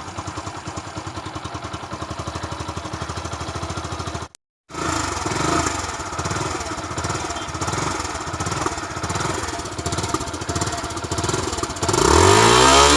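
Motorcycle engine idling through its stock silencer with an even, rapid thumping beat. After a brief break it comes back louder and is revved repeatedly, the revs rising and falling, and near the end louder still.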